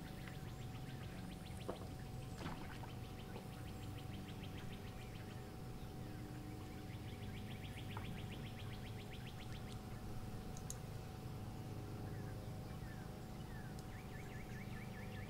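Salt-marsh ambience: repeated trills of rapid, evenly spaced ticks from small wildlife, a few short bird chirps, and a steady low hum with a faint steady tone beneath.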